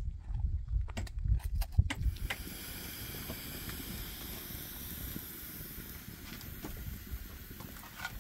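A low outdoor rumble with a few sharp knocks, then, from about two seconds in, a wood fire burning in a stone hearth: a steady hiss with faint crackles.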